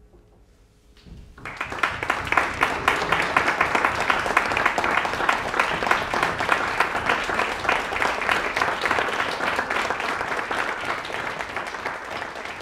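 Audience applause breaking out about a second and a half in, after a brief hush with a faint lingering tone, then continuing steadily and easing slightly near the end.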